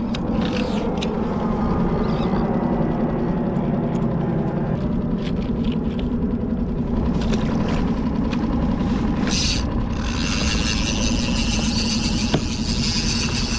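Small skiff's outboard motor running at a steady speed, with a few light clicks from the reel and lure being handled. About ten seconds in, water rushing and splashing along the hull grows louder.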